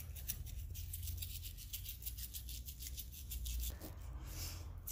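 Toothbrush bristles scrubbing a dog's teeth in rapid back-and-forth strokes, with a short break about three seconds in.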